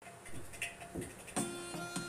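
Background music starting abruptly out of silence. It has a drum beat with strikes about every half second and held melody notes.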